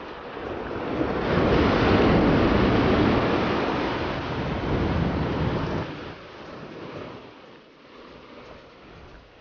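Ocean surf breaking and washing up the beach. It swells to its loudest about two seconds in and falls away after about six seconds.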